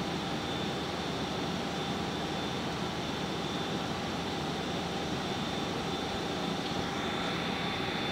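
Steady hum and hiss of running laboratory machinery and ventilation, with faint constant whines, unchanging throughout.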